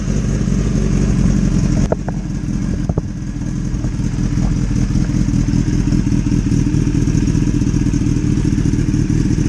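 2015 Kawasaki ZX-10R's inline-four engine running steadily at idle, freshly refilled with oil and left running to check for leaks at the drain plug and oil filter. A couple of sharp clicks come about two and three seconds in.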